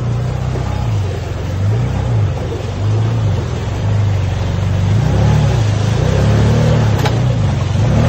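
Can-Am side-by-side UTV's engine revving up and down over and over as it drives through mud. There is a single sharp knock about seven seconds in.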